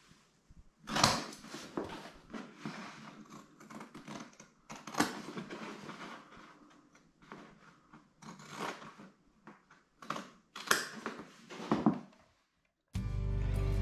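Heavy waterproof coated cloth being handled and folded on a floor: irregular rustling and crackling, loudest about a second in and again around five and eleven seconds. Acoustic guitar music starts near the end.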